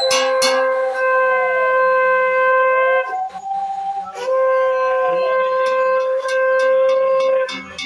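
Conch shell (shankha) blown in two long, steady notes, each about three seconds, with a brief bend in pitch as each blast starts and ends, as is done at a Hindu puja. Light sharp clicks sound alongside.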